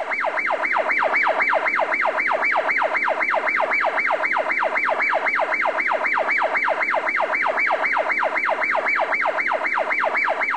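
Electronic police-style siren of a child's ride-on toy police motorcycle, a fast yelp sweeping up and down about four times a second.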